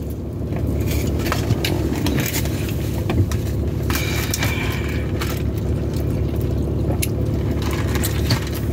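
Steady low hum inside a car, with scattered small clicks, crinkles and scrapes from a plastic fast-food drink cup and paper food packaging being handled.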